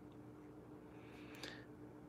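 Near silence: faint room tone with a low steady hum, and a faint, brief scratch about a second and a half in as a fountain pen nib writes on paper.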